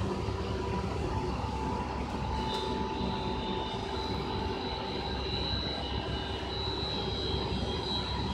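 Steady drone of running factory machinery around a fiber laser cutting machine, with a thin high whine that joins about two and a half seconds in.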